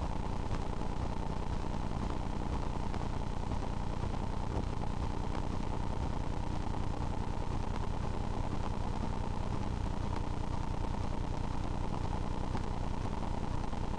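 Steady low rumbling noise with a faint constant hum, unchanging throughout, with no distinct events.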